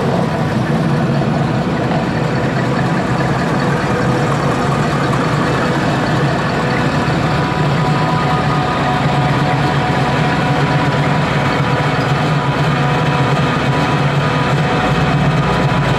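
Engines of classic vehicles driving slowly past at low revs, first a full-size Ford Bronco and then a late-1960s Pontiac GTO, a steady engine sound throughout.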